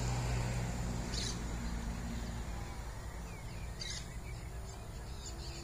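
Birds calling, with short sharp chirps about a second in and again near four seconds, over a low steady rumble that slowly gets quieter.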